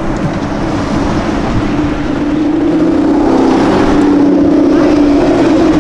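Aston Martin Vanquish Zagato Shooting Brake's naturally aspirated V12 engine running at low revs as the car drives slowly through a turn, a steady low drone that swells louder about halfway through and holds.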